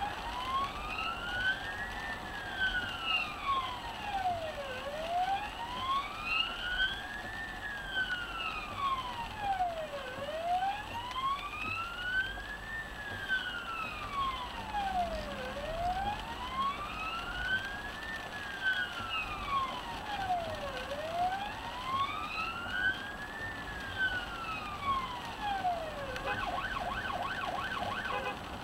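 Ambulance response vehicle's siren on a slow wail, rising and falling about every five seconds, switching to a fast warble near the end; heard from inside the vehicle over steady road noise.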